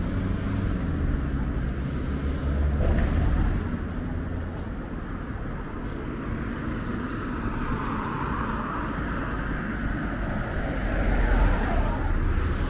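Road traffic: cars driving past on a village street, their engines and tyres growing louder about three seconds in and again near the end.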